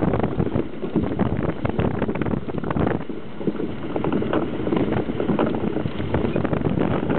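Iceboat sailing fast over rough ice: a steady rumble with constant clatter from the runners, and wind buffeting the microphone.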